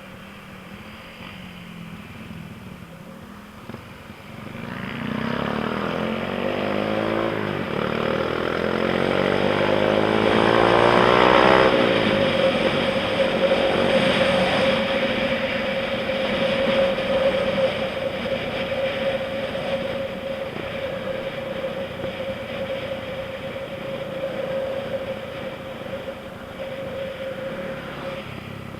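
Honda Wave 125i's single-cylinder 125 cc four-stroke engine accelerating hard, its pitch climbing and dropping back twice as it shifts up through the gears. It then holds a steady high note at top speed, over a constant rush of wind.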